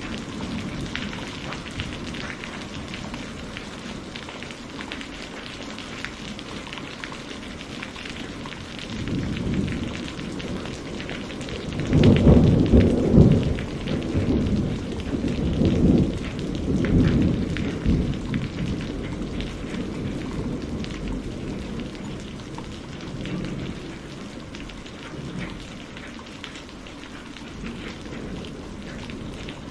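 Steady rain falling, with a long rumble of thunder that swells about a third of the way in, peaks for a couple of seconds and rolls away over several more.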